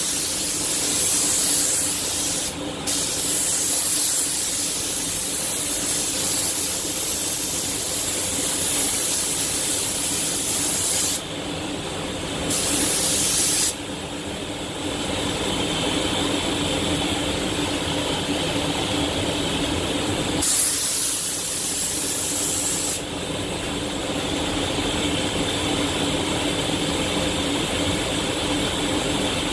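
Iwata Hakone spray gun hissing as clear coat is sprayed in long passes, the air cutting off and coming back several times as the trigger is released and pulled again. A steady low hum runs underneath.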